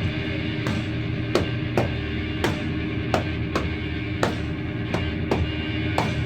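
Rock song playing, with a drum kit to the fore: sharp drum hits land on a steady beat over a dense, continuous band backing.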